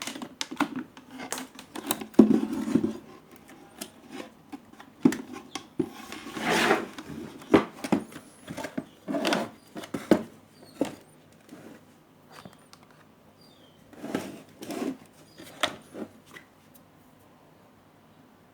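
Irregular bench handling sounds: sharp clicks and knocks with short rubbing scrapes, in bursts with pauses between them, as the home theater's hardware is worked on and taken apart.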